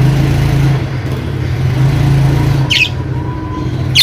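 A steady low hum, with two short, high squawks that fall in pitch, the first about two and a half seconds in and the second at the very end.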